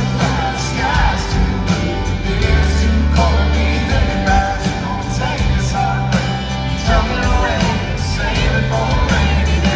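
A country-rock band playing live through an arena PA: electric and acoustic guitars, drums and a steady bass line, with a man singing lead over them.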